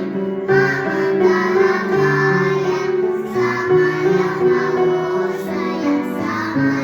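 A group of 4–5-year-old children singing together over an instrumental accompaniment.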